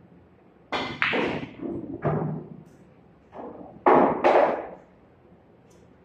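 Pool shot: the cue strikes the cue ball, balls knock together, and the pocketed ball drops and rolls through the pool table's ball return with a run of loud thuds about four seconds in.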